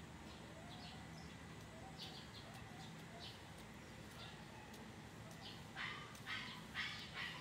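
Fledgling bird giving short raspy chirps, faint at first, then a quick run of about five louder ones near the end.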